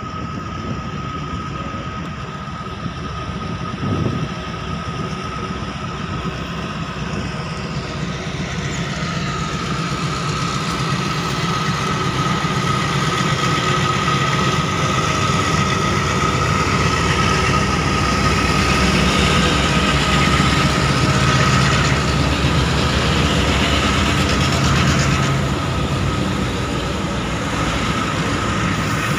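Multiple-unit CC 202 diesel-electric locomotives hauling a loaded coal train, their engines running under load with a deep rumble and a steady high whine. The sound grows louder as the locomotives approach and pass close by, easing slightly near the end.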